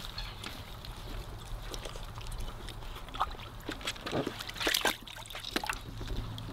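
Weimaraner puppies wading and eating in shallow water in a paddling pool. Water sloshes and trickles under their feet, with scattered clicks and clatters from the metal food dish, thickest about three-quarters of the way through.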